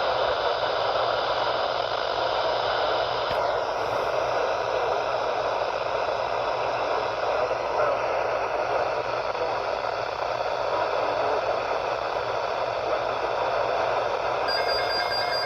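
Steady static hiss from a weather radio receiver on a weak NOAA Weather Radio signal, with no broadcast voice coming through. Near the end, faint steady tones begin to come through the hiss.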